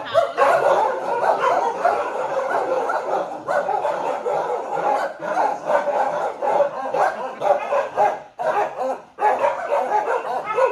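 Several kennelled shelter dogs barking at once in a continuous, overlapping chorus, with a few brief lulls.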